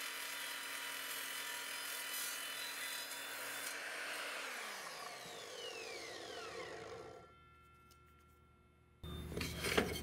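Evolution 10-inch sliding miter saw running steadily with its 24-tooth multi-material blade in a 2x4. About four seconds in, the motor is released and winds down with a falling whine, fading out by about seven seconds. Near the end there is a knock as the cut wood is handled.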